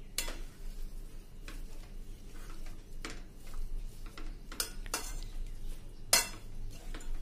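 Metal spoon stirring a thick potato samosa filling in a kadai, scraping the pan and striking its rim and sides in sharp clinks every second or so.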